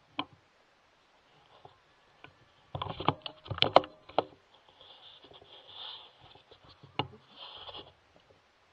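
Handling noise from a rifle and its thermal scope: scattered clicks and knocks, with a close-together cluster of them about three to four seconds in as the rifle is moved, and faint rustling between.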